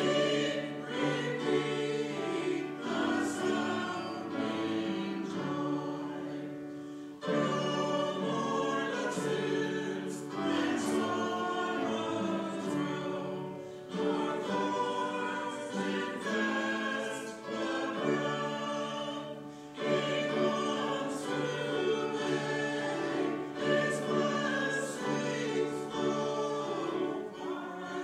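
Small church choir singing in harmony, holding long notes, with a short break between phrases about every seven seconds.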